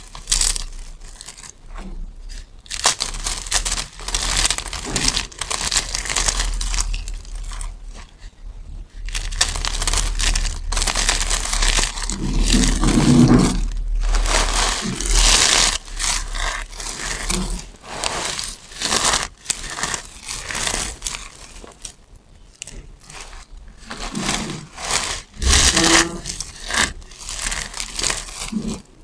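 Hands squeezing and crumbling a pile of thin soap shavings and flakes, a crisp crunching crackle that comes in repeated squeezes with short pauses between them.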